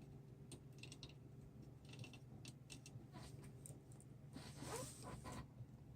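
Faint clicks and light scraping of small hand tools handled at a soldering bench, with a short soft swishing stretch near the end, over a steady low hum.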